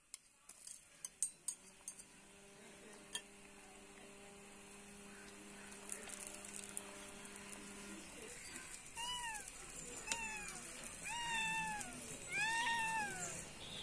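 A cat meowing four times, about once a second, each call rising then falling in pitch. It comes after a few sharp clicks and a steady low hum.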